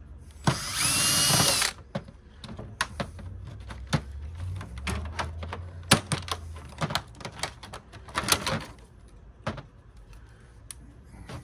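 Cordless drill-driver spinning for about a second to back out a screw from a DVD player's chassis, its motor pitch rising and then falling. Then many small clicks and clatter of screws and plastic parts being handled, with a second short burst of noise near the end.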